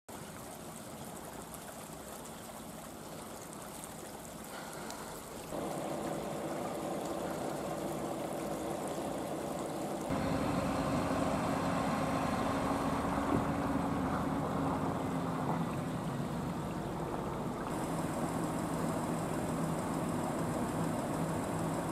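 Heavy diesel truck engines running steadily, heard over a few abrupt cuts: a faint outdoor hiss at first, then a steady engine drone from about five seconds in that grows louder about ten seconds in.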